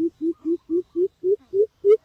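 A bird calling in a rapid series of short, low hooting notes, about four a second, each rising slightly in pitch as the series goes on.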